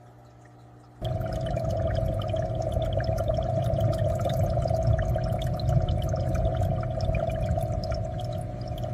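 Aquarium water bubbling and pouring, full of small popping bubbles, cutting in suddenly about a second in over a low steady hum.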